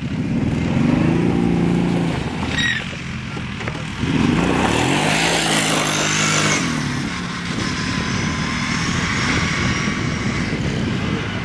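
ATV engines revving as the quad bikes ride through snow, the engine pitch rising and falling, with a surge just after the start and another about four seconds in.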